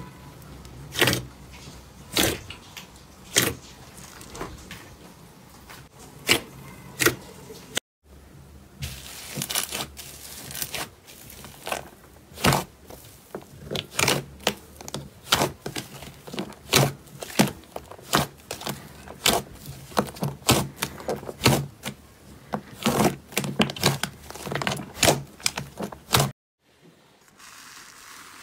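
Hands squeezing and pressing slime, trapped air pockets giving sharp wet pops and clicks, about one a second at first, then more often after a cut. Near the end a softer, even crackle comes as a hand presses bead-filled slime.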